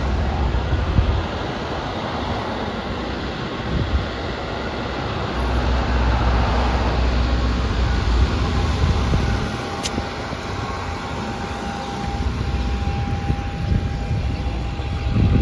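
Steady low rumble of vehicle engines and tyres driving along a street, with a faint high steady tone joining about halfway through.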